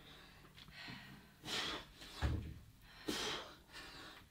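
A man breathing hard after heavy lifting, sharp gasps about every second and a half, with a dull thump a little after two seconds in.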